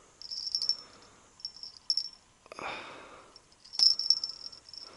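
Crickets chirping in short repeated bursts, with a soft rustle about two and a half seconds in.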